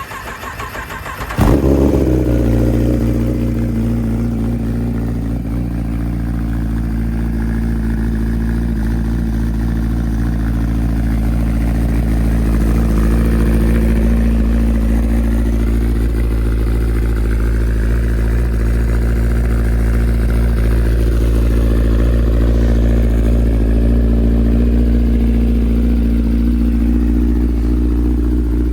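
2016 Kawasaki ZX-10R's inline-four cranking on the starter for about a second and a half on a cold start, catching suddenly, then settling into a steady idle through its M4 slip-on exhaust.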